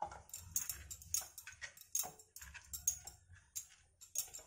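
Hands working eggplant slices into thick gram-flour batter in a steel bowl: irregular wet squishing and light clicks, several a second.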